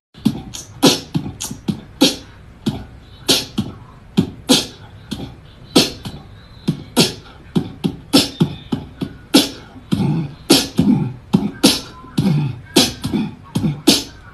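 A rapid, uneven series of sharp clicks and thumps, about two or three a second, with the sound of beatboxing-style mouth percussion.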